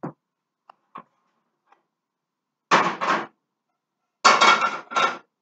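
Metal saucepan and cookware clattering against the gas stove: a few light knocks, then two louder clatters lasting about half a second and a second, with a faint metallic ring in the second.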